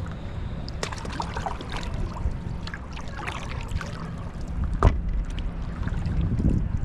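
Lake water lapping and splashing around a paddleboard, under a steady wind rumble on the microphone, with a sharp knock about five seconds in.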